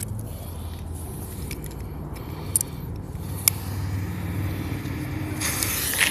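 A steady low hum with two sharp clicks, then about five seconds in a dancing daisy ground spinner firework catches and starts hissing.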